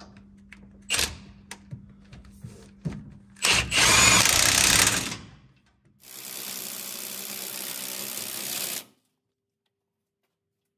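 Power tool running in two bursts while tightening the 15 mm bolts on top of an engine mount: a short loud run about three and a half seconds in, then a longer, steadier and quieter run that cuts off suddenly. A few clicks and knocks of tool handling come before it.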